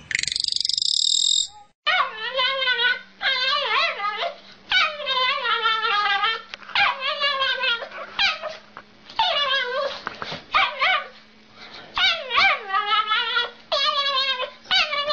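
A dog whining and yowling in a long string of short cries, each under a second, with a wavering pitch that rises and falls within each cry. It opens with a brief high buzzing trill, and a faint steady hum runs under the cries.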